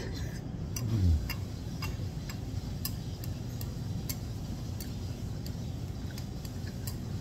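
Light, irregular clicks of chopsticks against a ceramic donburi bowl held up to the mouth as rice and beef are scooped in, over a steady low background hum. A brief louder low falling sound comes about a second in.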